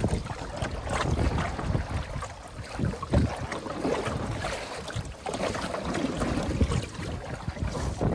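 Canoe paddle dipping and pulling through choppy lake water, with splashing and water slapping the hull, while gusty wind rumbles on the microphone.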